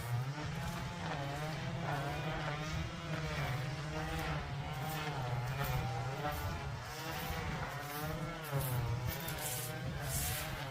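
Small multirotor drone's motors and propellers buzzing, the pitch wavering up and down as the throttle changes.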